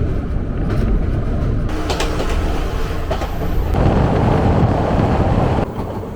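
Passenger train running on the rails, a steady low rumble that swells louder about four seconds in and drops off suddenly near the end.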